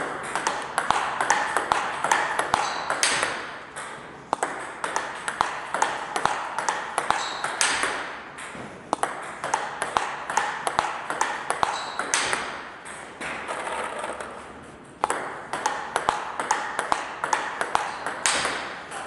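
Table tennis rally: the celluloid ball clicks sharply and repeatedly off rubber-faced paddles and the table, with quick irregular ball-on-table and bat-on-ball hits. A penholder player is smashing forehands against short blocked returns.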